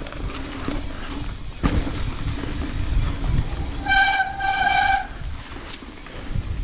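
Mountain bike rolling down dirt singletrack, a low rumble of tyres and rattle with a sharp knock about a second and a half in. About four seconds in, a high squeal in two short parts, lasting about a second: disc brake squeal as the rider slows.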